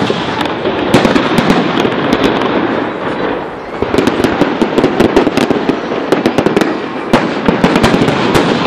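Large public fireworks display: aerial shells bursting in a rapid series of sharp bangs and crackles, with a brief lull about three and a half seconds in.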